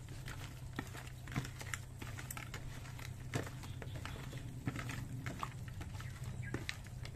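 Hands squishing and kneading raw chicken pieces in a plastic bowl, coating them with black pepper and seasoning: soft wet squelches and irregular small clicks, over a steady low hum.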